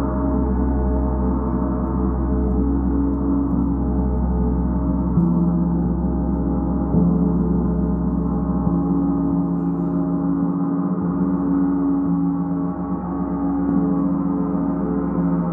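Large suspended gong played with a felt-headed mallet in soft, repeated strokes, keeping up a steady, dense wash of overlapping ringing tones. Two slightly stronger strokes land about five and seven seconds in.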